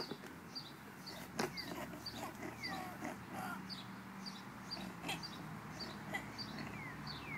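Small birds chirping in repeated short high calls, some sliding downward in pitch, over a faint steady low hum. A single sharp knock about one and a half seconds in.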